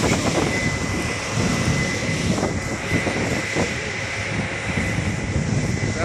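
Case IH 8230 combine running while harvesting corn: a steady engine and machinery drone with a constant high whine.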